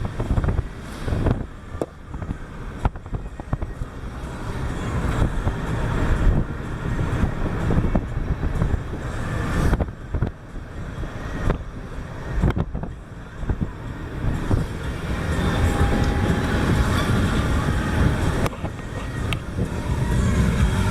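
Car driving along a road, heard from inside or through an open window: a low engine and road rumble, with wind buffeting the microphone.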